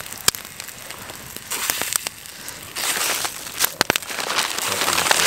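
Campfire crackling, with bursts of hissing from bannock frying in oil in a small cast iron pot set in the coals. A quick run of sharp clicks comes about two thirds of the way through.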